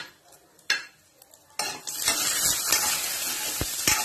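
Cashews, raisins and pistachios sizzling in hot ghee in a metal kadai as a metal spoon stirs them, the sizzle starting about a second and a half in. A few sharp taps of the spoon against the pan come near the end.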